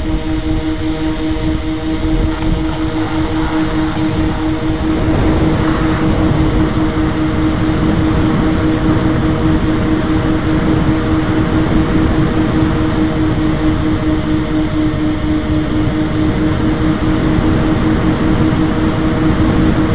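A radio-controlled model plane's motor and propeller running at a steady pitch, heard from a camera on the plane, under heavy wind rush that grows louder about five seconds in.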